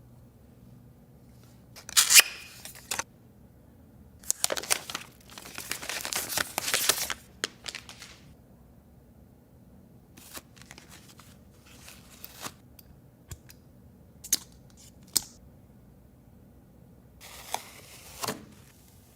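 iMac packaging being handled and opened: bursts of paper and cardboard tearing and rustling, a longer stretch of it a few seconds in, then a scatter of short sharp clicks and one more burst near the end.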